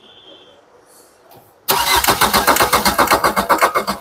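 Maruti Ciaz's 1.3-litre four-cylinder diesel engine, freshly rebuilt, cranked over by the starter motor in a fast even beat starting about two seconds in. This is the first start attempt after the rebuild, with the injectors just bled of air, and the engine is not catching.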